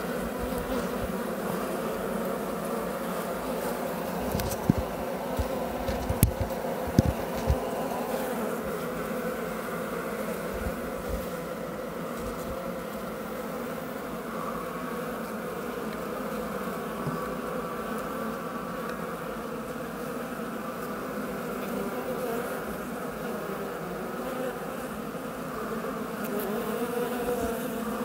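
Loud, steady buzzing hum of a large wild honey bee colony on its exposed comb, the sound of a very big, disturbed hive being cut out. A few brief knocks sound about five to eight seconds in.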